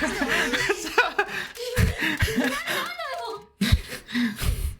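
Speech with laughing and chuckling.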